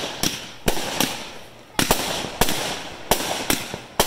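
Aerial fireworks bursting overhead: a quick string of about seven sharp bangs, irregularly spaced, each trailing off after the blast.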